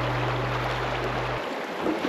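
A held low note of background music that cuts off about one and a half seconds in, over a steady rushing of water.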